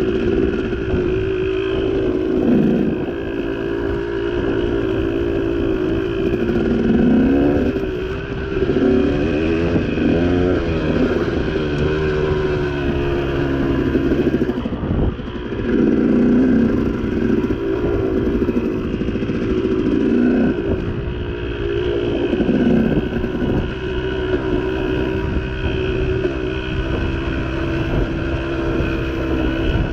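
Dirt bike engine running on a rocky off-road climb, its revs rising and falling again and again as the throttle is worked.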